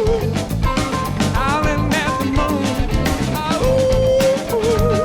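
Live blues-rock band playing an instrumental passage over drums and bass. A lead line holds long notes, bends up into higher ones and wavers with vibrato.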